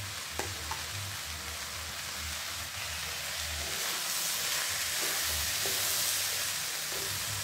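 Stir-fry of shallots, chili, tomato, tempe and anchovies sizzling in oil in a granite-coated wok, turned over with a wooden spatula that scrapes and ticks against the pan now and then. The sizzle swells a little past the middle.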